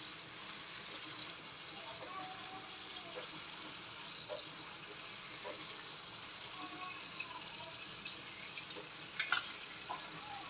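Teriyaki sauce sizzling and bubbling around salmon fillets in a nonstick frying pan on low heat: a steady soft hiss with small pops. A brief clatter of metal tongs against the pan about nine seconds in.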